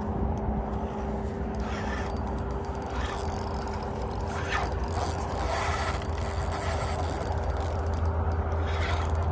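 Fishing reel being cranked to bring in line while fighting a hooked fish, with scraping, rubbing mechanical strokes over a steady low rumble.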